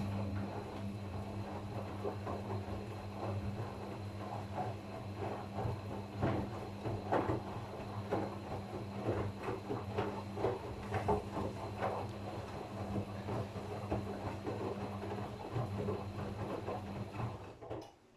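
Gorenje washing machine running its wash: a steady motor hum with the irregular tumbling and swishing of the wash in the turning drum, stopping suddenly near the end.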